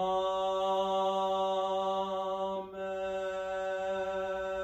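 A man's voice chanting a drawn-out "Amen" on one held note, the sung response that closes the Collect. It slides up into the pitch at the start and breaks briefly about halfway through as the syllable changes.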